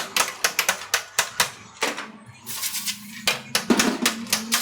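Quick, irregular clicks and knocks of hand tools working on metal motorcycle engine parts, several strokes a second.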